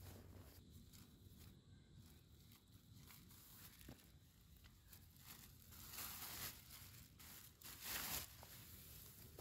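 Crinkly rustling of an orange SOL bivvy with a silver reflective lining as it is pulled from its stuff sack and shaken out, with two louder rushes of crinkling in the second half.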